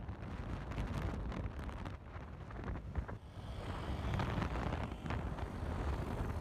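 Wind buffeting the microphone of a camera riding on a moving motorcycle: an uneven low rumble that rises and falls, with no clear engine note.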